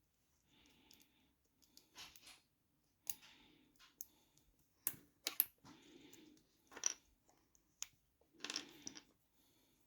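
Small plastic LEGO minifigure parts clicking and tapping as they are handled and pressed together, with irregular sharp clicks and short rustles.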